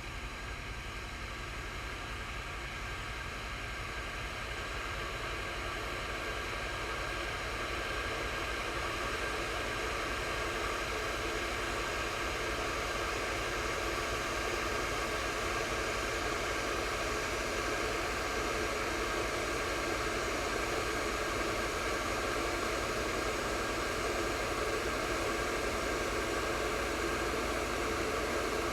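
Electric kettle heating water: a steady hiss and rumble of water coming toward the boil, growing slowly louder.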